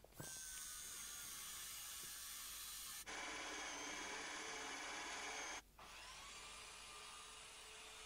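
Cordless drill running a Forstner bit through a wooden board, a steady whine that turns louder and coarser about three seconds in as the bit cuts. It stops suddenly a little past halfway and gives way to a quieter steady hum.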